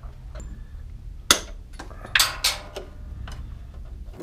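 Sharp clicks and snaps from hands working inside an electrical breaker panel: one loud snap about a second in, then two more just after two seconds, with lighter ticks between, over a low steady hum.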